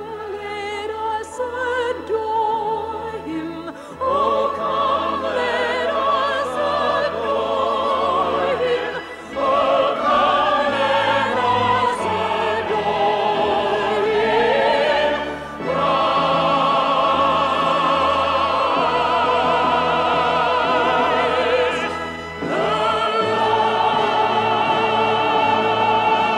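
Operatic singing with wide vibrato over an orchestra: long held notes in phrases, with short breaks between them.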